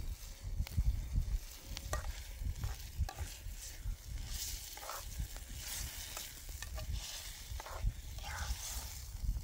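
A metal spoon stirring and scraping a thick stew in a metal pot over an open wood fire, with scattered clicks and a sizzling hiss from the simmering pot and the fire.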